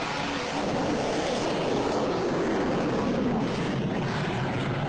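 Solid rocket booster of a Nirbhay cruise missile at launch: a loud, steady rushing roar as the missile climbs away.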